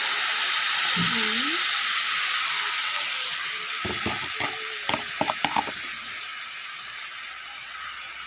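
Freshly poured teriyaki sauce (soy sauce, honey, sugar and vinegar) sizzling and bubbling in a hot pan around pan-fried chicken, the sizzle slowly dying down as the sauce settles. A few light clicks about four to five seconds in.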